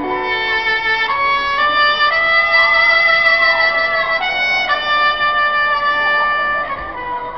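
Live band music from an outdoor stage: a melody of long held notes, each moving to a new pitch after a second or so, over the band.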